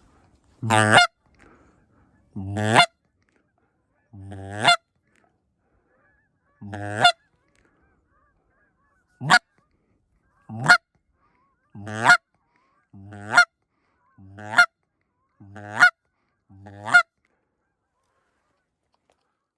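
About eleven loud, single goose honks from a hand-held goose call, blown to call to a flock of geese. Each honk is short and swells at its end. They come about two seconds apart at first and quicken to about one a second near the end.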